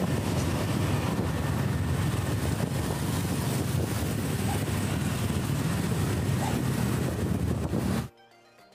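Wind noise buffeting the microphone, with engine and road noise from a moving motorbike in traffic. It cuts off suddenly about eight seconds in, leaving faint music.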